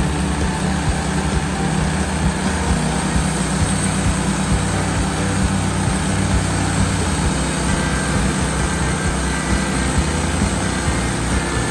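Woodmizer LT15 sawmill running steadily under load, its band blade sawing through a pine log, with the blade being lubricated with diesel.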